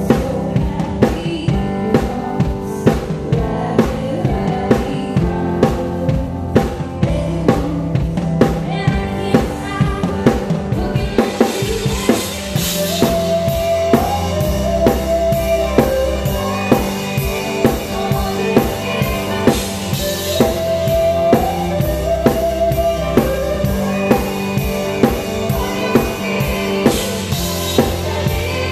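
Drum kit played live with a band, heard close up: kick, snare and cymbals, Zildjian among them, keep a steady beat over bass and keys. From about eleven seconds in the cymbals wash over the beat.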